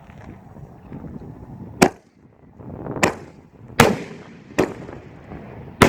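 Three canister banger firework shells going off together: five sharp, loud bangs at uneven intervals, each trailing off in echo.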